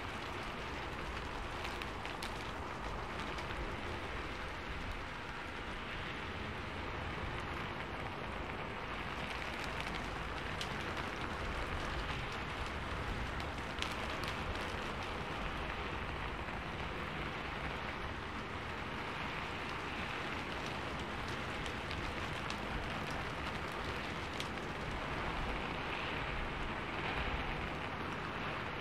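Steady rainfall, with occasional sharper drops standing out.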